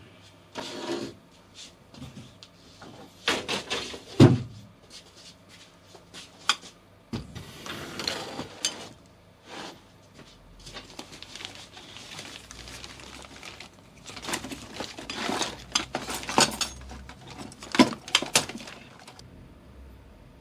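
Handling and rummaging through a wooden box of packaged small electrical parts: irregular knocks, clatter and rustling of plastic packaging, with the sharpest knock about four seconds in.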